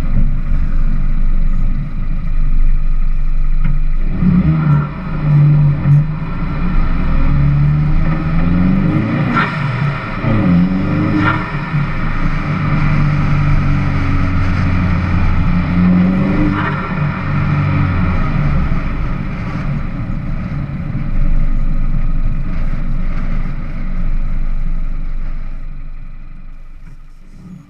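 R56 Mini Cooper S 1.6-litre turbocharged four-cylinder engine pulling through the gears, its revs rising and falling several times. Short puffs of turbo blow-off valve flutter come at some of the shifts.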